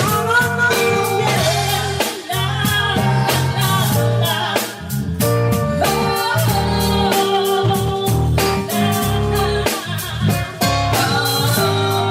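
Slow pop song played by a band: guitar, a bass line and a steady drum beat, with a sung vocal line that bends in pitch over the top.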